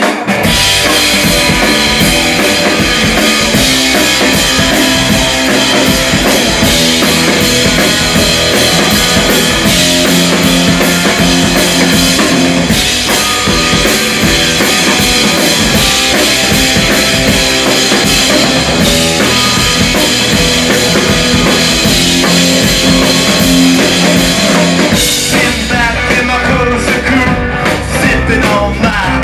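Live rock band playing loud and without a break: electric guitar, electric bass and a drum kit.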